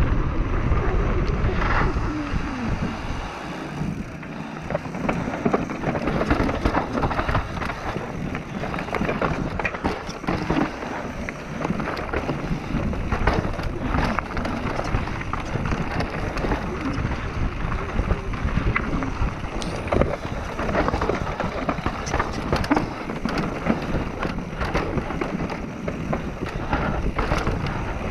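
Mountain bike riding fast downhill on dirt: a steady rush of tyre noise and wind on the microphone, heaviest in the first couple of seconds, with frequent clicks and rattles as the bike runs over rough ground.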